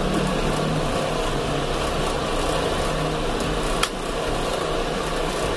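Steady background hum and hiss, with a single sharp click about four seconds in.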